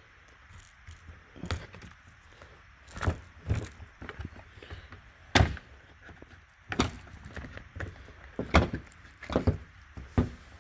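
Parts of a 2006 Ford Focus outside door handle being worked by hand: an irregular series of sharp clicks and knocks, about eight in all, the loudest about five seconds in.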